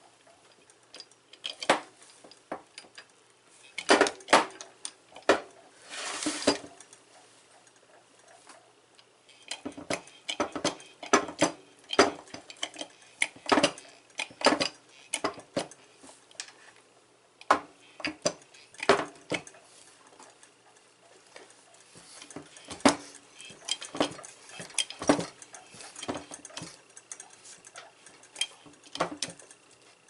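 Irregular metallic clicks and clinks from a handheld hydraulic battery-cable crimper being handled and worked, its steel die head and pump handle knocking and clicking, some in quick runs of clicks.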